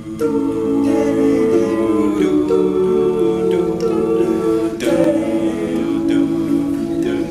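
All-male a cappella group singing sustained close-harmony chords on syllables without lyrics, the chords changing about once a second.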